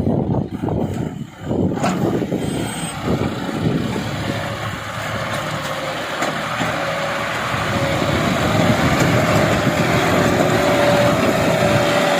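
Heavy diesel vehicle engine running, uneven at first, then settling into a steady whine a few seconds in while growing gradually louder.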